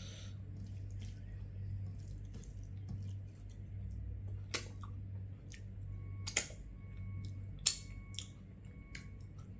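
Mouth sounds of someone eating fish with rice: quiet chewing with several sharp wet smacks and clicks. The loudest come about four and a half, six and a half and seven and a half seconds in, over a low steady hum.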